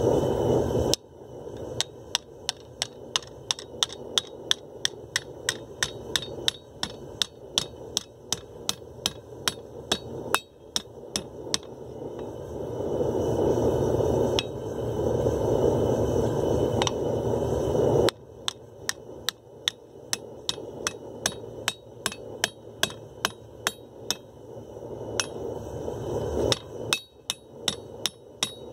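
Hand hammer striking a 3/16-inch A36 steel plate over the horn of a steel anvil, as the plate is forged into a curved collar: sharp metal-on-metal blows, often about two a second, in runs broken by short pauses. A steady rushing noise sits underneath and swells between some runs.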